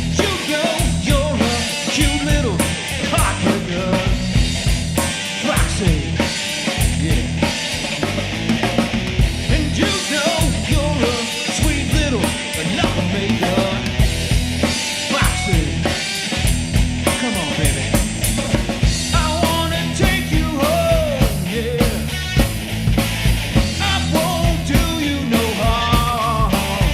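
Rock band playing an instrumental passage: electric guitar with bending notes over bass and a steady drum kit beat.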